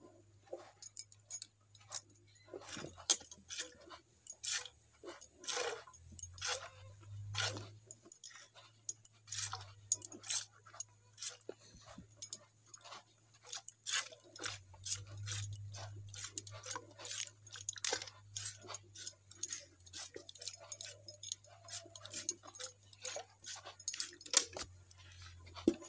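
Milk squirting into a steel bucket as a cow is milked by hand: short squirts, one after another at an uneven pace, with light metallic clinks.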